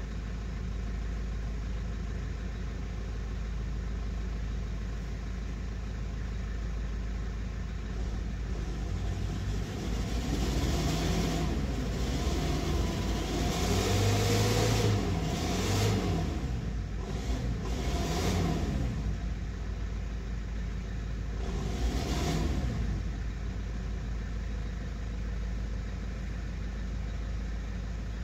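Isuzu diesel box truck's engine revving up and down in five or six surges, the biggest about halfway through, as the truck tries to drive through a mud hole and bogs down; the engine runs steadily before and after the surges.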